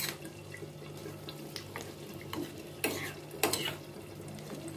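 Bay leaves sizzling softly in hot ghee in a small steel tempering pan. A metal spoon clicks and scrapes against the pan once at the start and twice about three seconds in.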